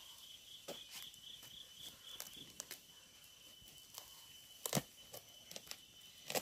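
A knife cutting into a pumpkin: a few short sharp cracks as the blade goes through the rind, the loudest about three-quarters of the way through. A thin, steady, high insect trill runs underneath, pulsing during the first couple of seconds.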